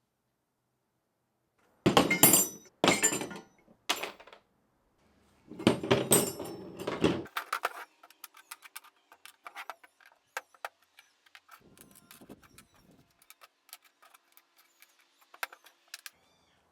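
Metal parts of an old bicycle pump being handled on a bench: a few loud clattering knocks, a longer rattling clatter around the middle, then a long run of light clicks and tinks.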